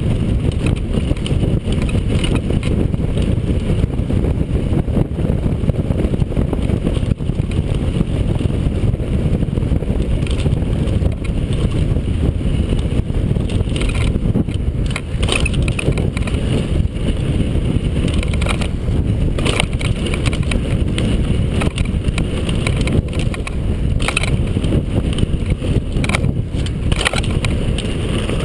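Mountain bike running fast down a loose, rocky dirt trail: a steady rumble of tyres on gravel and the bike rattling over the bumps, mixed with wind on the microphone. A few sharper clatters come past the halfway mark and near the end.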